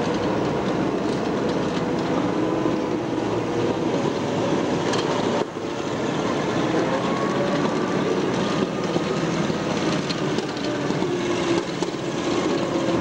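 Small WWII-era tracked military carrier driving past, its engine running steadily with a constant clatter from its tracks.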